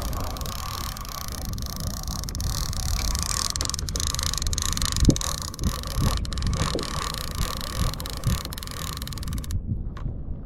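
Wind buffeting the microphone on a kayak at sea, a steady rumbling rush with a few short thumps about halfway through. The hiss drops away suddenly near the end.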